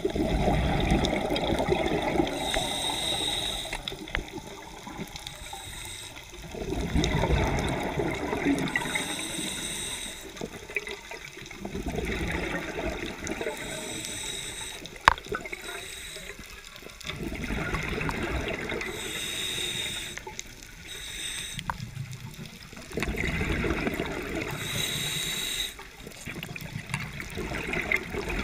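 Scuba diver breathing through an open-circuit regulator underwater: a rush of bubbles on each exhale, then a shorter hiss of the inhale, repeating about every five to six seconds. A single sharp click about halfway through.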